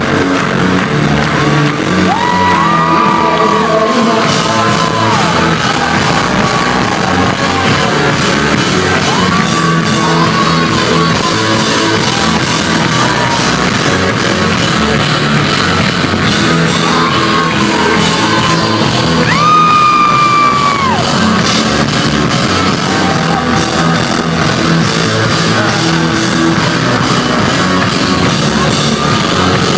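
Live rock band playing loud, with a singer's voice coming in long held phrases over the guitars and drums.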